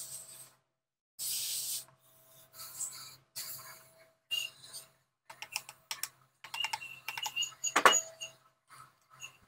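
Metal engine parts being handled during piston installation: a short hiss about a second in, then scattered clicks and light metallic clinks from a ring compressor and piston against a cast-iron V8 block, with one sharp knock near the end.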